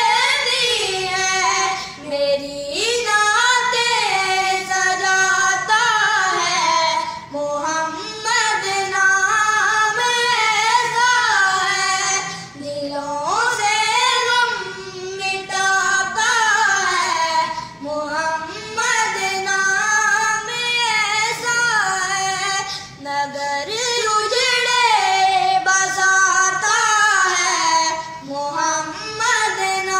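A high solo voice singing a naat, an Islamic devotional song, in long gliding melodic phrases with short breaks between them.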